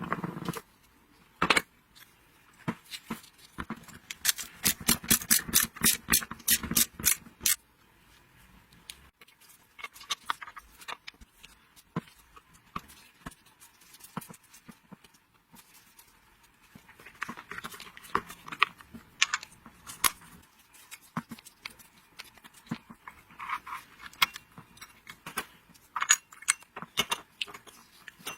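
Hand work on small metal parts: sharp clicks and taps with light metallic clatter and scraping, including a fast run of clicks, about four a second, from about four to seven seconds in.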